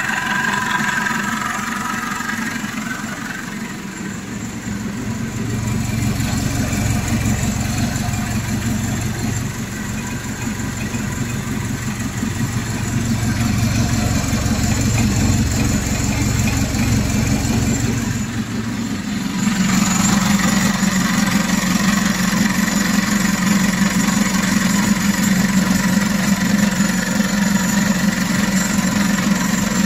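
Turbocharged diesel engine of a Dodge S56 minibus idling steadily, freshly rebuilt and running after its fuel pump overhaul and fuel bleeding. Its note changes about four seconds in and again just before twenty seconds.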